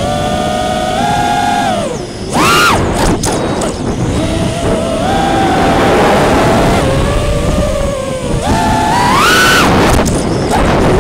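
Brushless motors and propellers of a 5-inch FPV racing quadcopter whining, the pitch rising and falling with the throttle. Sharp upward sweeps come about two seconds in and again near the end as the throttle is punched. A rushing wind noise runs over the onboard camera's microphone throughout.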